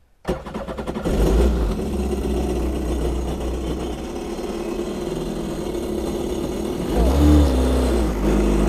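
A 2006 Kawasaki STX-15F jet ski's four-stroke engine is cranked on the starter, catches about a second in, and then idles steadily on its trailer, out of the water. It is being run to warm the oil before an oil change. The engine note rises briefly about seven seconds in.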